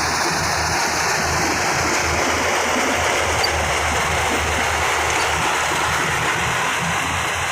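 Yanmar combine harvester running steadily under load: a loud, even rush of engine and threshing noise with a low rumble beneath.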